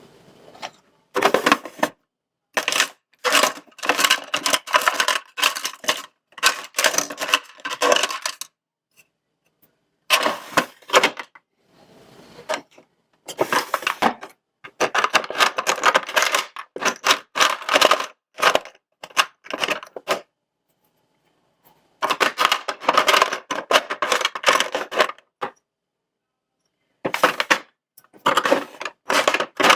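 Bursts of rapid, crisp clicking and crackling from hands working with diamond painting kit materials, in clusters of a few seconds broken by short silent pauses.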